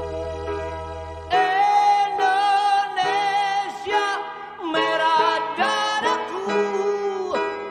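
Background music: a held keyboard chord over a low bass note, then about a second and a half in a melody with vibrato comes in and moves through several notes.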